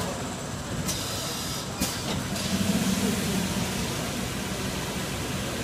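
Automatic pail filling machine running while liquid is dispensed into plastic pails: steady machine noise, with a hiss of about a second and a half starting about a second in and a sharp click near its end.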